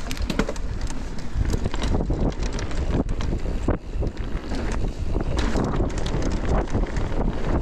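Wind rushing over the microphone while riding an electric mountain bike downhill, mixed with the bike clattering over a rough trail: many sharp knocks and rattles.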